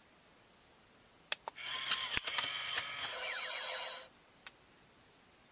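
Two clicks, then an electronic sound effect from the Ultimate Mechanix Unicorn Gundam toy's built-in speaker that plays for about two and a half seconds. It has steady tones and clicks, ends in a quick run of falling sweeps and cuts off abruptly, followed by a single click.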